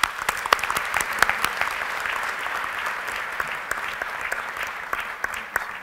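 Audience applauding: a dense, steady patter of many hand claps that starts to die away near the end.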